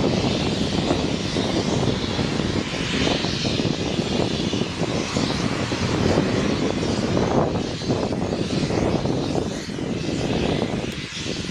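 Natural gas rushing out of a gas-storage cavern wellhead under pressure: a steady, loud, jet-like roar that drops off a little near the end.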